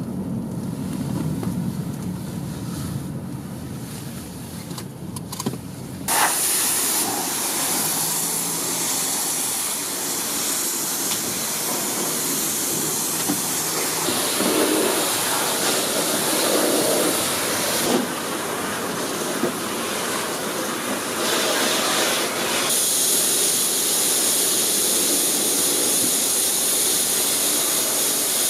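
Low rumble of a car rolling slowly. About six seconds in, a self-service car wash's high-pressure spray wand starts with a sudden, steady hiss of water jetting onto the car's body, shifting a little as the jet moves.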